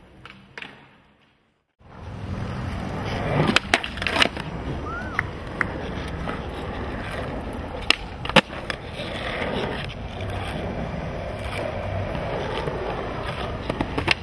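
Skateboard wheels rolling on hard ground, a steady rough rumble that starts about two seconds in after a short silence, broken by several sharp clacks of the board.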